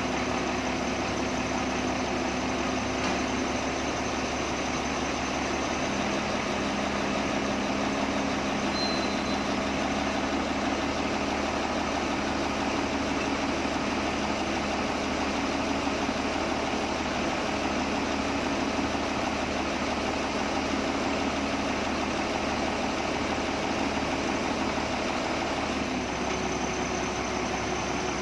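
Diesel engine of a Doosan SD200N wheel loader running steadily at idle while its raised bucket holds a suspended engine, its note shifting slightly about six seconds in and again near the end.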